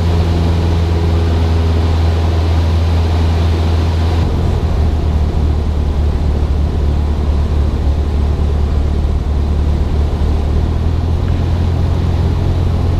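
A Cessna 172SP's four-cylinder Lycoming engine and propeller drone steadily in flight. The engine note drops slightly about four seconds in.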